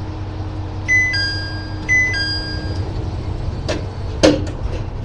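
Two-note electronic chime sounding twice, the door-closing warning on a diesel railcar, then the sliding doors shut with two knocks about three-quarters of the way in. Under it runs the low steady hum of the idling diesel engine.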